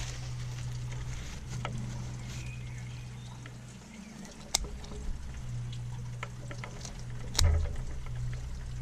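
Poultry shears cutting up a whole roast chicken: a few sharp snips and crunches through skin and bone, the loudest with a knock about seven seconds in, over a steady low hum.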